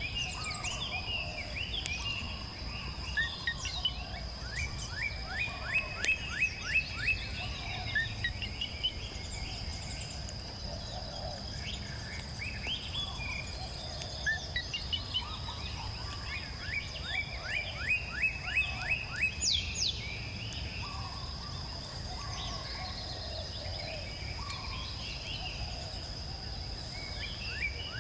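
Songbirds singing outdoors: a phrase of about ten quick repeated notes comes twice, with other scattered chirps between. A steady high insect-like whine runs underneath.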